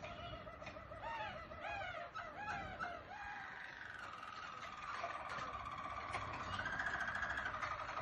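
Harzer Roller canaries singing their low, rolling song. Continuous rolls and trills run throughout, with a run of three arched, swooping notes about a second in, and a higher rolling trill that grows louder in the second half.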